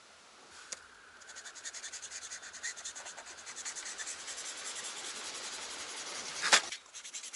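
Felt-tip marker scratching on drawing paper in fast, short strokes as colour is scribbled in, growing louder, with one louder scrape near the end.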